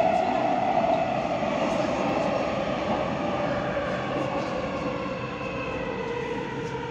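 Siemens Inspiro metro train running through the tunnel: steady wheel-and-track rumble with the whine of its traction motors falling slowly in pitch.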